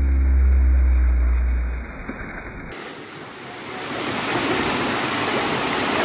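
A deep, muffled rumble with a low drone that fades out about two seconds in. Then the steady rush of a waterfall pouring into its plunge pool rises and holds.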